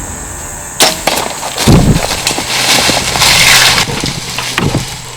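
A sharp crack about a second in, then loud crashing and crunching through dry brush and branches for about three seconds, dying away near the end: a shot deer running off through the woods.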